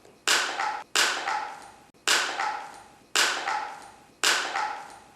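Five sharp bangs about a second apart, each dying away over most of a second, then a sudden cut-off.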